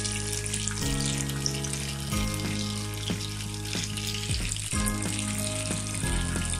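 Two whole pomfret shallow-frying in hot oil over medium heat, the oil sizzling with a dense crackle of small pops. Background music with sustained chords that change every second or two plays over the frying.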